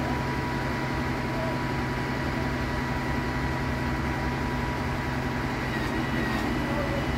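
Boom truck crane's engine running steadily at a constant speed, with a thin, steady high whine above the low rumble.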